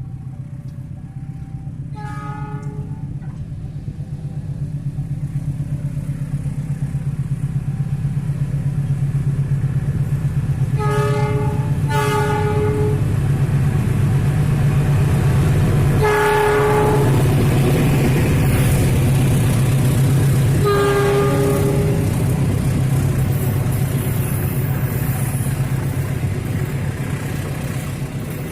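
Train horn sounding over the rising rumble of an approaching train: one short blast about two seconds in, two short blasts close together near the middle, then two longer blasts later on. The low engine rumble builds and stays loud as the train draws close.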